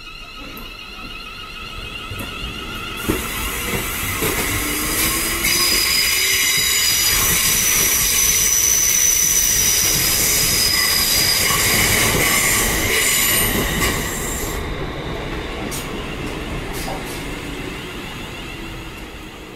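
ScotRail Class 380 electric multiple unit pulling away from the platform. Its traction motors whine, rising in pitch as it gathers speed. The carriages then run past with loud wheel-and-rail noise and a steady high-pitched squeal, loudest in the middle, and the sound fades away as the train clears.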